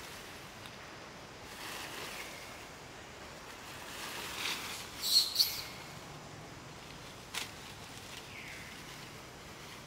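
Monkeys moving through leafy undergrowth and dry leaf litter: intermittent rustling, with two sharp, loud high-pitched sounds in quick succession about halfway through and a single short click a couple of seconds later.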